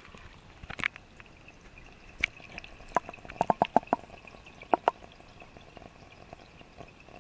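A dozen or so light, sharp clicks and taps at irregular intervals, with a quick run of five or six about three and a half seconds in, over a faint steady hum.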